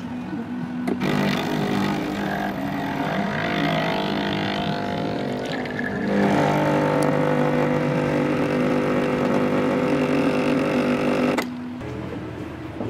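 Espresso machine pump humming steadily while it pulls a shot. It starts about a second in, changes and gets a little louder about halfway, and cuts off suddenly shortly before the end.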